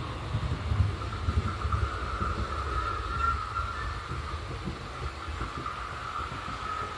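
H0 scale model train running on the layout track: a low rumble of wheels with small irregular clicks, under a steady high whine. The rumble eases after the first couple of seconds as the train pulls into the station.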